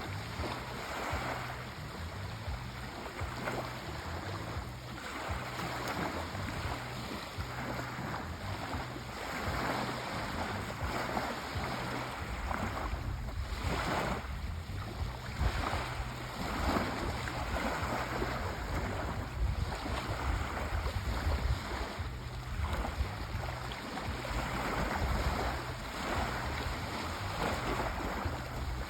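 Sea waves washing in and out on the shore, each wash swelling and fading every few seconds over a low rumble.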